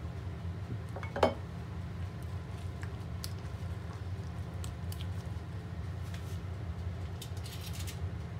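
A spatula stirring eggs into grated carrots in a glass bowl: soft wet squishing with scattered light taps against the glass, and a short squeak about a second in, over a steady low hum.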